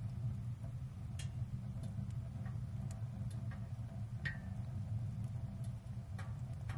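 Wood fire burning in a Gstove wood stove: irregular sharp crackles and pops, about a dozen, over a steady low rumble.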